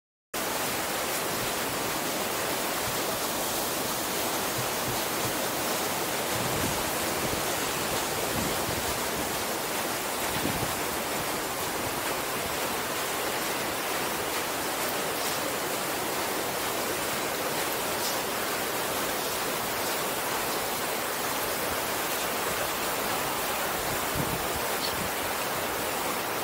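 Steady rush of running water, an even hiss that cuts in abruptly just after the start and holds without change.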